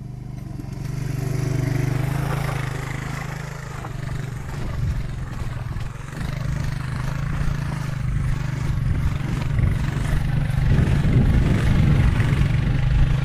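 A steady low engine drone, with a noisy layer above it, getting louder toward the end.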